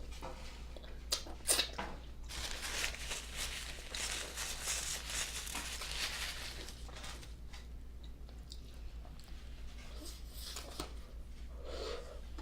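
Close-up eating sounds: biting and chewing an Oreo frozen-custard cookie sandwich, with a few sharp clicks early and late and a longer stretch of dense noise in the middle.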